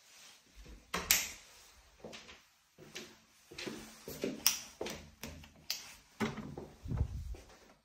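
Irregular knocks, clicks and rustles, the loudest about a second in, with dull low thuds near the end: footsteps and door handling as someone walks through a hallway holding the phone.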